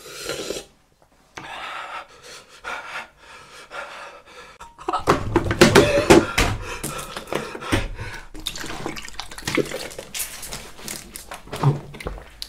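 A man groaning and breathing hard from the burn of an extremely hot chip. Near the end a thin plastic water bottle crackles in his hands as he gulps water from it.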